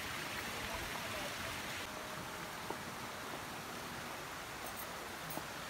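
Steady rush of a small mountain stream running over rocks, with a couple of faint clicks.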